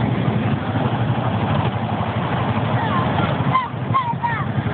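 Steady low rumble of a ride-on mini train running. From about three seconds in, a string of short, high, sliding calls sounds over it.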